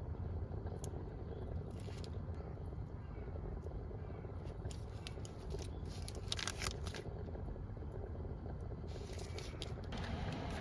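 A steady low hum with scattered light clicks and scrapes, a cluster about six seconds in and another near the end, as of things being handled during cooking.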